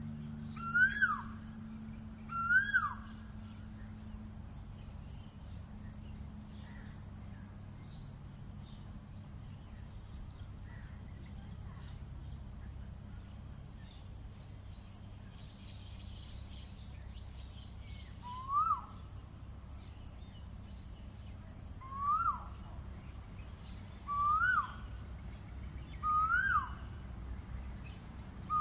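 Asian koel calling: a loud whistled note that rises and then drops sharply. It comes twice in the first few seconds, then after a long pause five more times at about two-second intervals, over a steady low background hum.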